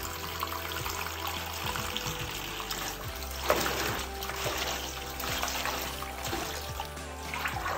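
Water sloshing and splashing as Malabar spinach leaves are swished about by hand in a plastic bowl of water, with background music. A louder splash comes about three and a half seconds in.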